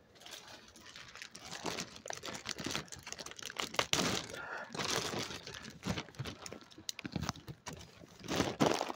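Irregular rustling and crinkling close to the microphone, with fabric and hands rubbing against the handheld phone.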